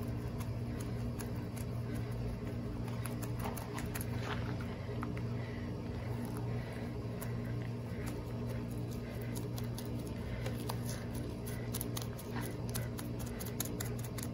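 A paintbrush dabbing resin into fiberglass mat on a boat hull: soft wet patting and clicking that grows busier in the second half, over a steady low machine hum.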